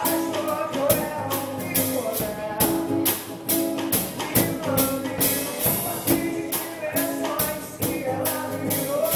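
A band playing an upbeat song with a steady beat of percussion hits over sustained instrumental chords.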